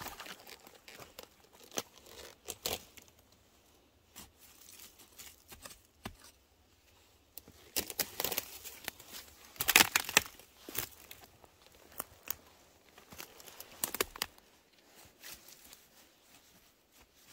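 Irregular rustling and crackling of dry forest-floor litter and brush being disturbed, with scattered sharp snaps. The loudest bursts come about eight and ten seconds in.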